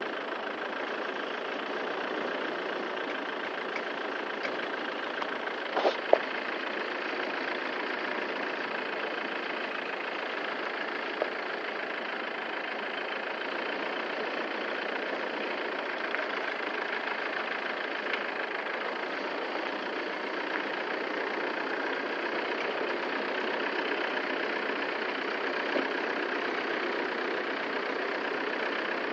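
Machinery running steadily, with a few sharp knocks about six seconds in and another near eleven seconds.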